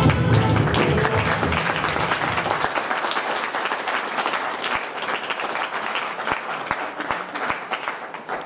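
Audience applauding, dense clapping that slowly thins out and fades toward the end. Music fades out under it in the first couple of seconds.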